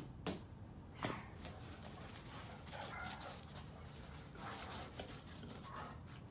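A Vizsla making faint, short vocal sounds, with two sharp short sounds in the first second and scattered softer ones after.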